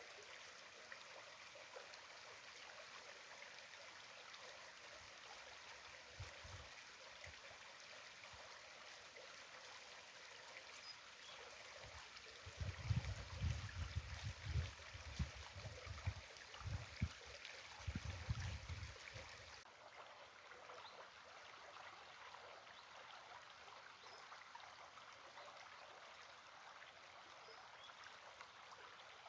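A small stream running with a steady, faint rush and trickle of water. In the middle there are several seconds of low rumbling surges.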